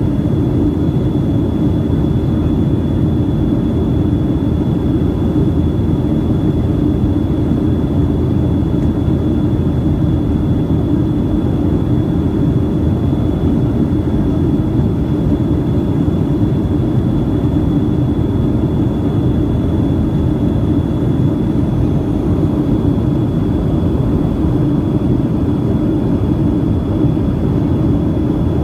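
Steady airliner cabin noise in flight: a constant low rush of engines and airflow, with a thin high whine held throughout.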